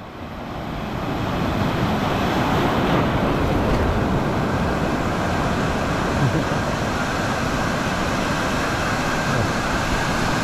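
Small surf breaking and washing up the shallows: a steady rushing of whitewater that fades in over the first second or so.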